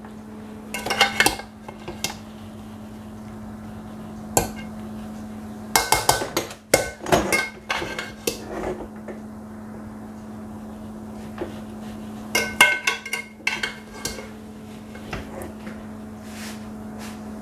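A spoon scraping and knocking against the inside of a metal cooking pot as cooked pilau rice is turned over from the bottom up, in several short bouts, with a steady low hum underneath.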